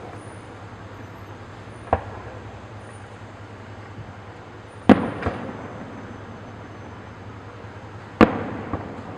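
Fireworks bursting: three sharp bangs about three seconds apart, the first smaller, the last two loudest and each followed by a smaller pop, every bang trailing off in echo.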